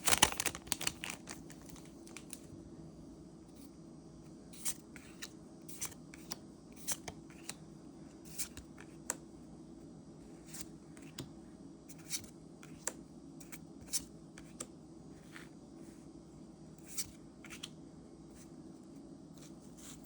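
A booster pack's foil wrapper crinkling and tearing for about the first second and a half. Then trading cards are handled, with a light, sharp snap every second or so as single cards are slid and flipped.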